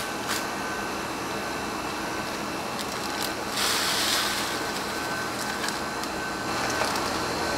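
A steady background hiss, with a brief rustle of a plastic waste bag about halfway through as gloved hands gather and twist it shut.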